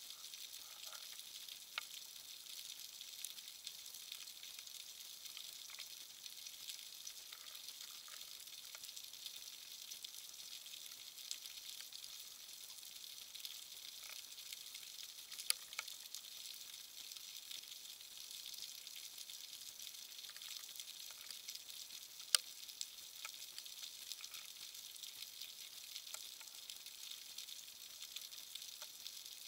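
Underwater crackle: a faint, steady fizzing hiss with scattered sharp clicks, two louder clicks about halfway through and about three-quarters of the way through.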